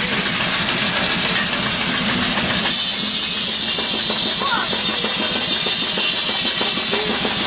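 Sawmill machinery running loudly with a steady rhythmic low knocking, joined by a high hissing saw noise that grows stronger about three seconds in.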